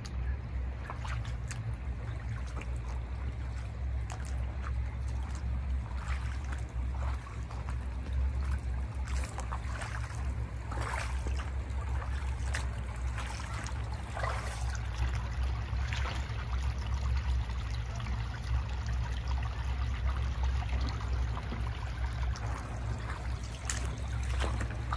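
Spring water trickling from the drained lake bed's seeps and drainage pipes, with a steady low rumble underneath.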